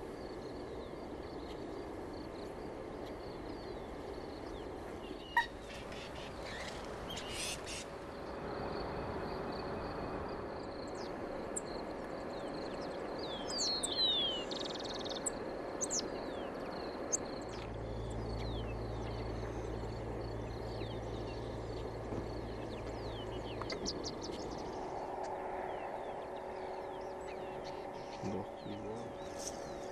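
Outdoor ambience with birds calling now and then in short, high chirps, busiest about halfway through. A single sharp click comes early on, and a low hum runs for about six seconds in the second half.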